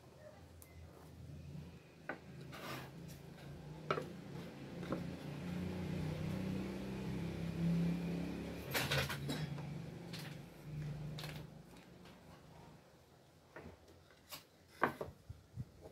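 Scattered light knocks and clicks as wooden boards, a small wooden disc and a ballpoint pen are handled and set down on a wooden workbench, over a faint low hum.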